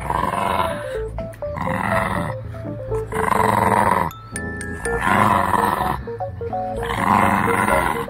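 Shih Tzu puppy growling in tug-of-war play, about five rough growls each under a second long, pulsing with its pulls on the braided tug toy. Light background music with short plucked notes plays underneath.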